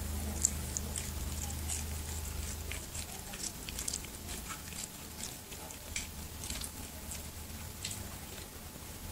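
Kitten chewing and licking a piece of cucumber, a run of small irregular wet clicks and crunches. A low hum underneath stops about three seconds in.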